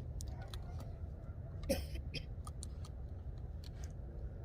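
Scattered light clicks and taps from hands working on comb and hive frames, over a steady low rumble, with one louder short squeak or scrape just under two seconds in.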